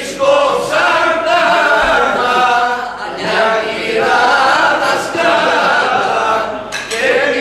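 A small group of voices singing a Greek folk song unaccompanied, in long held lines with short breaks between phrases.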